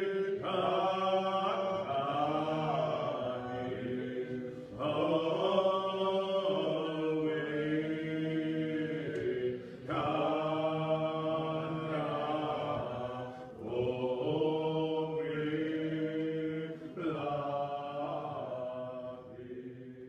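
Congregation singing a hymn in the Muscogee Creek language, in long phrases with short breaks between them, fading out near the end.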